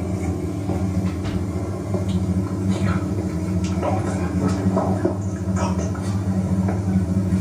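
Steady low electrical-sounding hum with several pitched layers, unchanging throughout, with faint scattered rustles and soft knocks on top.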